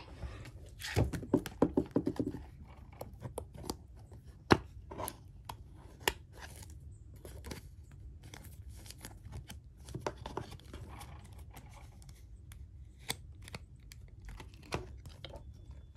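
Pokémon card packs and cards being handled and torn open by hand: irregular rustling, scratching and tearing with sharp clicks. It is busiest from about one to two and a half seconds in, with two sharp clicks later on.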